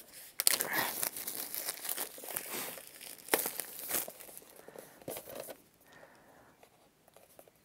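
Clear plastic shrink wrap being torn and peeled off a Blu-ray steelbook case, crinkling with many small irregular crackles; it dies down about five and a half seconds in.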